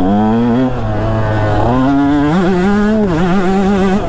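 2019 KTM 150 SX's single-cylinder two-stroke engine running under the rider's throttle: the revs climb, drop about three-quarters of a second in, climb again from about two seconds in, and dip briefly near the three-second mark before rising again.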